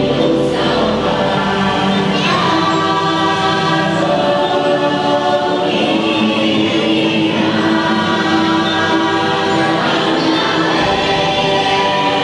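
Choir singing long held notes over music: the dark ride's show soundtrack.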